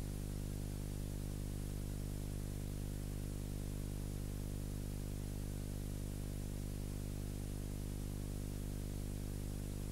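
Steady electrical hum with its overtones, under an even hiss, unchanging throughout: soundtrack noise on silent film footage.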